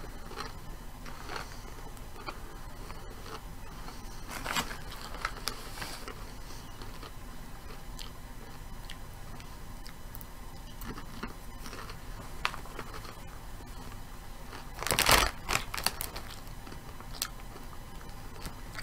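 A person crunching and chewing Lay's Limón potato chips in short, faint crackles. About three-quarters of the way through there is one louder rustle, from the chip bag being handled.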